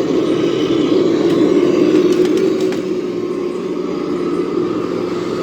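Steady engine-like drone of radio-controlled model vehicles running.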